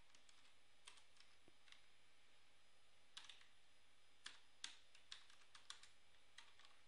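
Faint typing on a computer keyboard: irregular single keystrokes and short runs of clicks with pauses between them, as an address is typed into a form.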